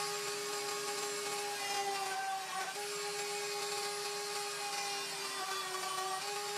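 Flex-shaft rotary tool spinning a 1/8-inch Kutzall Extreme round burr, carving into a small piece of pine: a steady high motor whine whose pitch sags briefly twice, about two and a half and five and a half seconds in.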